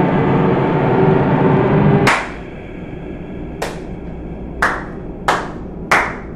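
A loud, dense drone cuts off abruptly about two seconds in with a sharp clap. Then one person claps slowly, four more claps about a second apart.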